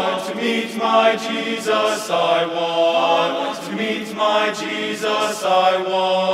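Boys' a cappella choir singing a slow spiritual in close harmony, the chords changing about every half second over a held low note.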